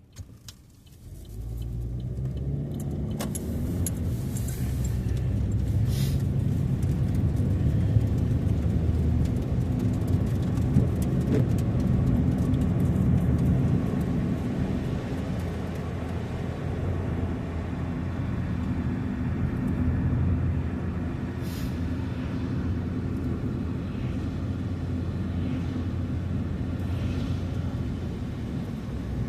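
Car driving: a steady low rumble of engine and road noise. It comes up about a second in, after a brief quiet moment and a click.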